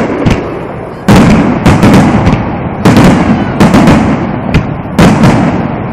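Aerial firework shells bursting in quick succession during a finale: a string of loud bangs with crackling between them, the heaviest about one, three and five seconds in.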